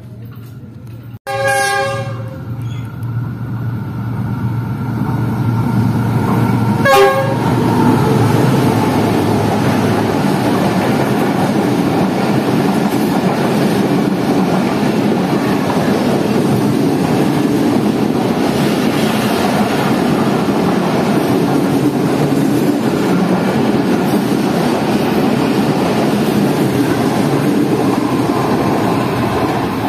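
Passenger express train passing close by: its diesel locomotive sounds its horn about a second in and again briefly about seven seconds in, then comes the steady rumble and clatter of the coaches going past.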